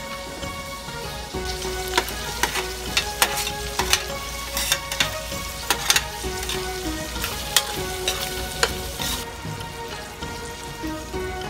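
Shrimp, Chinese sausage and minced garlic sizzling in a hot wok, with scattered sharp clicks and taps against the wok. The sizzle stops about nine seconds in, leaving soft background music.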